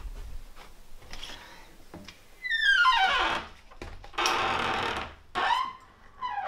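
Horror-film sound effects: a loud, shrill tone slides down in pitch about two and a half seconds in, followed by a harsh hissing rush and then shorter falling shrieks near the end.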